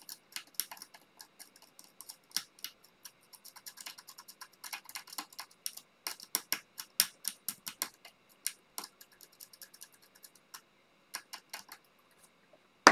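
A hand tool scraping the solder mask off a graphics card's circuit board: a fast, irregular run of short scratching clicks that thins out near the end. The scraping exposes the copper along a crack in the board to check for broken traces.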